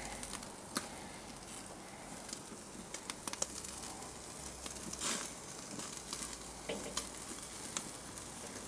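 Thin entrecote steaks sizzling on a hot charcoal grill: a steady hiss with scattered small crackles and pops.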